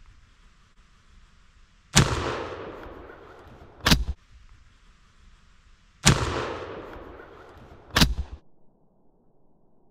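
Two shotgun blasts about four seconds apart, each rolling off in a long fading echo. About two seconds after each blast comes a shorter, sharp crack.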